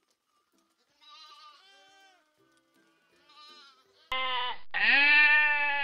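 Sheep bleating: a few faint bleats from the flock, then about four seconds in a loud baa in two parts, a short one and then a long drawn-out one that falls slightly in pitch.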